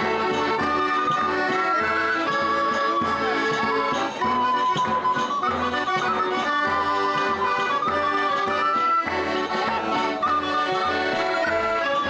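Background music: a folk-style tune with held melodic notes over a steady beat.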